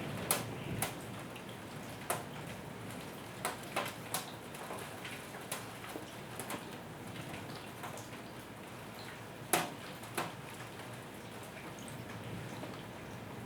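Light rain with a steady soft hiss, and scattered heavy drops tapping sharply on a hard surface at irregular intervals, the loudest drip about nine and a half seconds in.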